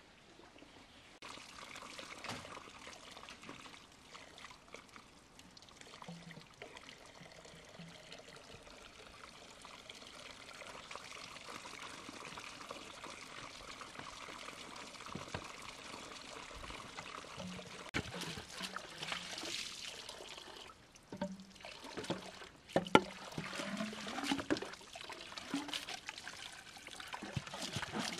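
Water pouring steadily, starting suddenly about a second in. It breaks off briefly about three-quarters of the way through, then resumes with scattered knocks and clatter.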